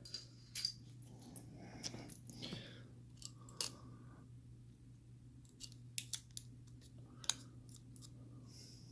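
Faint scattered clicks, taps and short rustles of tape being handled and fitted to a lever padlock, over a steady low hum.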